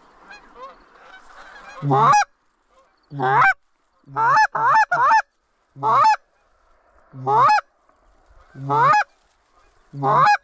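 Canada geese honking: faint chatter from a flock, then from about two seconds in about nine loud single honks, each rising in pitch, some coming in quick runs of two or three.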